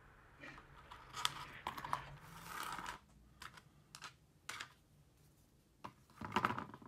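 Small plastic IC sockets and pin-header strips being picked up, slid and set down on a wooden workbench: scattered light clicks and scrapes, with a short rustle in the first half and a quick cluster of clicks near the end.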